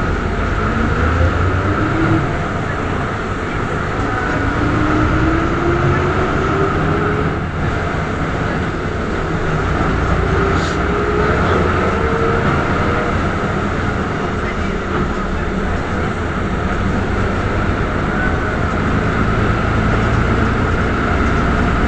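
Ikarus city bus under way, heard from inside: steady diesel engine and road rumble, with a whine that rises in pitch three times over the first dozen seconds as the bus picks up speed.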